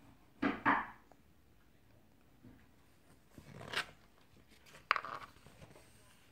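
Pages of a hardback picture book being turned: three short rustles of paper, the first a quick double one and the loudest.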